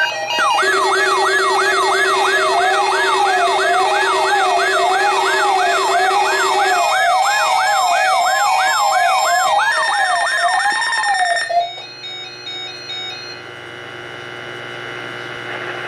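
Electronic siren tones: a fast yelp sweeping up and down about twice a second over a slower wail, with a steady low tone beneath for the first half. It cuts off abruptly near the end, leaving fainter steady tones.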